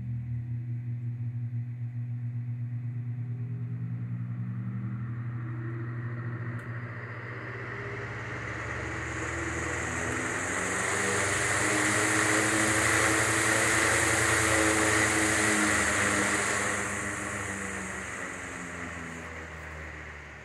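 Antique 1929 Emerson electric fan running: a pulsing motor hum, then the rush of air from its blades swells as it speeds up, peaks about two-thirds of the way through, and dies away as the blades slow.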